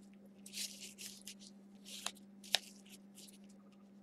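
Football trading cards being handled and slid through the hands: soft swishes of card stock, with two short sharp clicks about two and two and a half seconds in.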